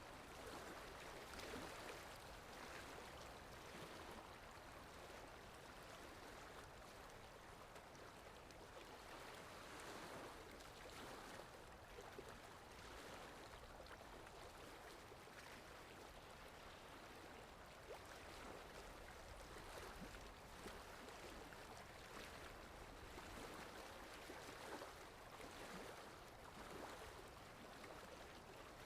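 Faint sea waves washing in: a soft, steady rush that swells gently every few seconds.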